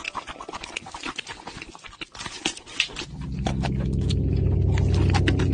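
Exaggerated eating sounds: a dense run of wet, crackly chewing and smacking clicks. About three seconds in, a loud, low, steady hum sets in and carries on under the clicks.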